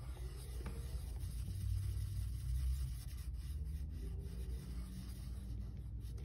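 A pen scratching on paper, filling in a box on a paper savings-challenge tracker, over a low steady hum.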